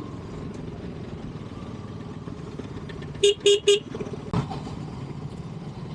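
Motorcycle engine running steadily while the bike is ridden. About three seconds in, a horn gives three quick toots, and a short knock follows a second later.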